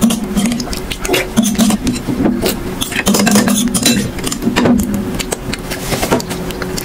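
Metal spoon scraping and clinking against a glass bowl, with many short sharp clicks as the last of the food is scooped out.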